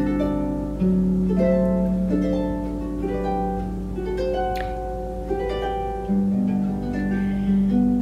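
Solo harp music: single plucked notes in a flowing melody over long-held bass notes.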